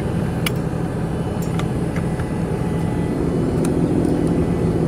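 JCB Fastrac tractor's diesel engine idling steadily, with a few light clicks near it, about half a second, a second and a half and three and a half seconds in.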